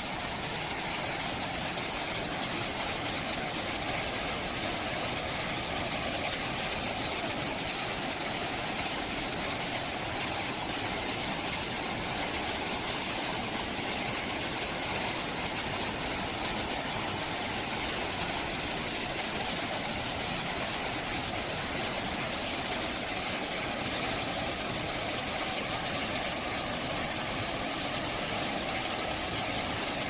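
Waterfall, a steady rush of falling water cascading over rock steps, with a strong hiss in the highs.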